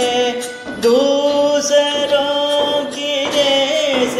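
Hindi devotional prayer song: a solo singer holds long, wavering notes over instrumental accompaniment.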